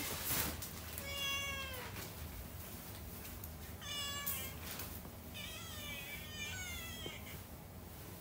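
Young tabby kitten meowing about four times: a long call about a second in that falls at its end, a short one near the middle, then two more close together, as it greets its owner coming home.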